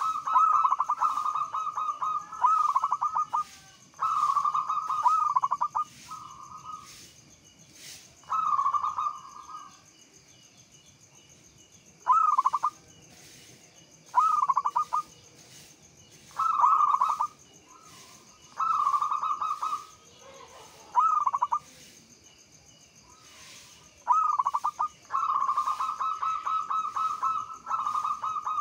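Zebra dove (perkutut) cooing: a series of short phrases of fast, rolling coos on a steady pitch, one every couple of seconds, with a few longer pauses between.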